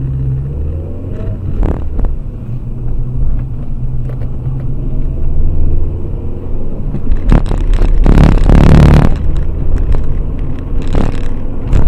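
A car's engine and road noise heard from a dash cam while driving: a steady low rumble, with a loud rushing surge lasting about two seconds two-thirds of the way through and a shorter one near the end.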